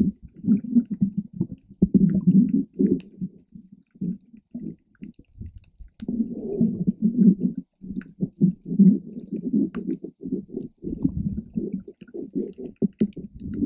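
Muffled underwater sound from a GoPro in its waterproof housing: irregular low rumbling and sloshing of water moving against the case as the swimmer moves, with faint scattered clicks.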